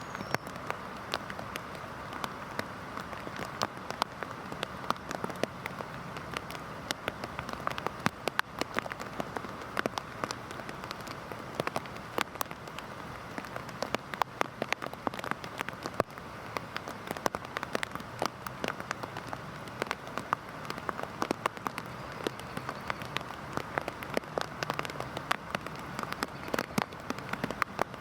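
Heavy rain falling steadily, a dense hiss with many sharp, close drop impacts scattered throughout.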